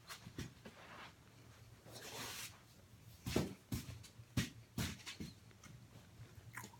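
Close-up chewing of oven-baked cornstarch chunks, with a run of sharp crunches about two a second from roughly three seconds in.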